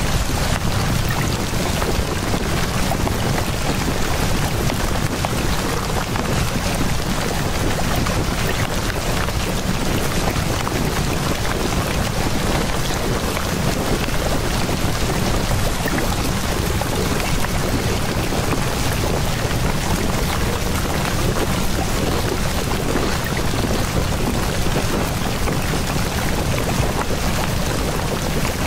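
Steady, unchanging rushing noise like heavy rain or a white-noise track, with a stronger low rumble underneath. It is the masking layer of a subliminal audio.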